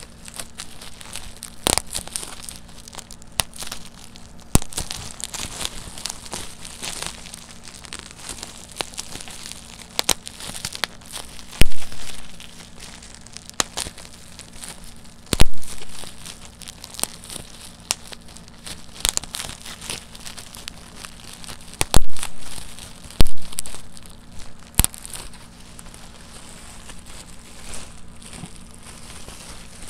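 Plastic bubble wrap crinkling as it is handled, with sharp pops at irregular intervals as single bubbles are squeezed between the fingers and burst; a few of the pops are much louder than the rest.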